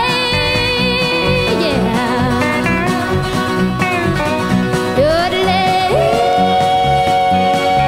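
Country-style song with a singing voice over a steady bass beat. The voice wavers on its notes and holds one long note over the last few seconds.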